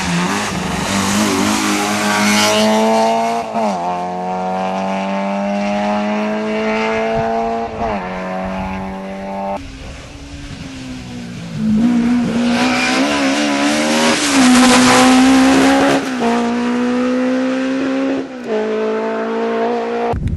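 Rally car engine revving hard through the gears: the pitch climbs in each gear and drops at each change, several times over. It is loudest about 12 to 15 seconds in.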